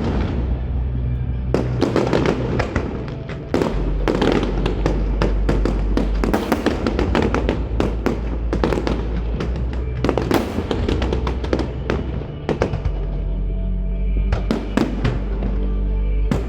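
Fireworks bursting in rapid succession, a dense run of bangs and crackles, over music with long held bass notes.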